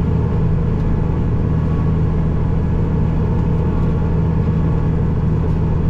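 Tractor engine running steadily under load: an even, unbroken low drone.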